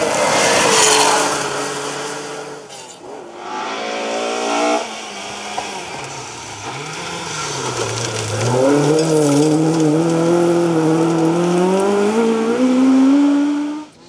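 Rally cars on a loose-gravel stage, a classic Porsche 911 and then a Mk2 Ford Escort, engines revving hard as they pass with tyres scrabbling on the gravel. The engine note climbs about four seconds in, and again from about eight and a half seconds, rising steadily until it cuts off at the end.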